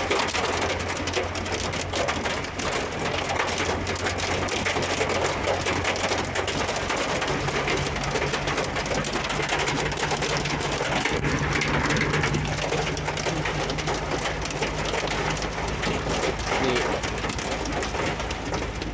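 Heavy rain and hail pelting the roof and windscreen of a Ford Ranger pickup, heard from inside the cab as a dense, steady patter. The engine's hum runs underneath and steps up in pitch about seven seconds in.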